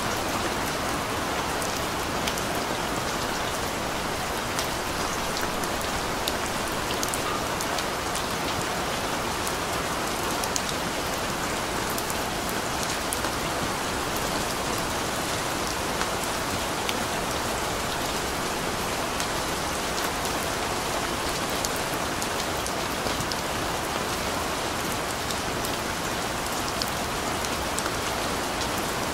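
Steady rain falling, an even hiss with scattered sharp drop ticks, holding at one level throughout.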